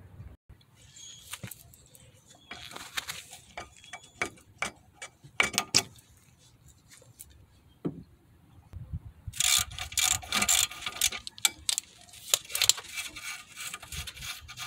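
Scattered metallic clicks and scrapes of pliers working the cotter pin and castle nut on a car's outer tie rod end, with denser runs of rapid clicking about ten and twelve seconds in.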